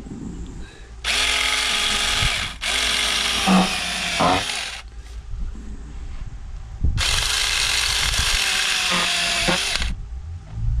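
Small chainsaw cutting into a pumpkin in three runs: two back-to-back bursts starting about a second in, then a longer run of about three seconds after a short pause.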